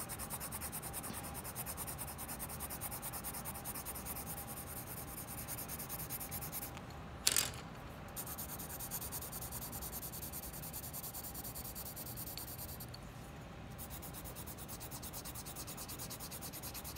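HB graphite pencil scratching quick, even hatching strokes on sketchbook paper, drawn as a row of light-pressure marks. The strokes break off twice for a moment, and a brief sharp tap sounds about seven seconds in.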